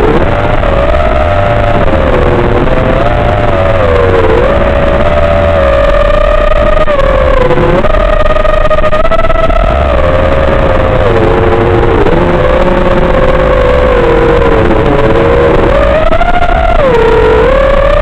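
Small FPV quadcopter motors and propellers whining in flight, several tones at once whose pitch rises and falls with the throttle, with dips about 4, 8 and 17 seconds in.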